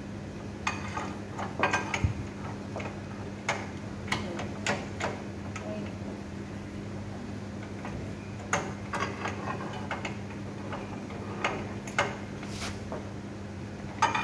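Irregular metallic clinks and taps of a wrench working on the steel bolts of an electric motor's mounting flange, over a steady low hum.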